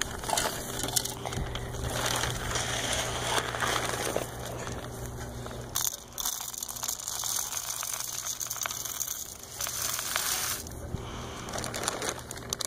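Close, continuous rustling and crackling, dense with small crunchy clicks, easing off for a few seconds in the middle.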